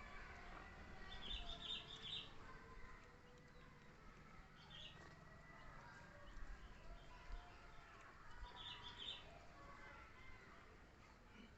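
Faint clusters of high chirping calls every few seconds, with softer wavering whistle-like tones between them, over a quiet background.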